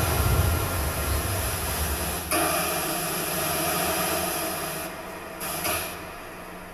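Noise soundscape played over loudspeakers: a low rumble with hiss above it that jumps up abruptly about two seconds in, then cuts out, briefly returns and falls away near the end as the rumble dies down.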